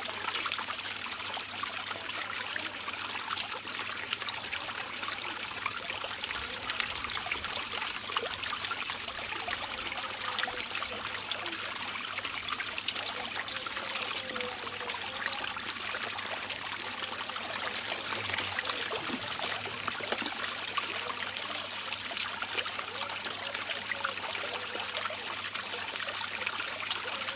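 Water rushing and trickling steadily as it swirls in a whirlpool funnel in a plastic basin.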